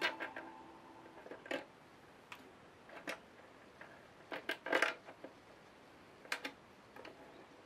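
Scattered light clicks and knocks of hands handling the vibration massager's plastic cover and its switch wiring, a few at a time with short quiet gaps, loudest in a cluster just before the middle.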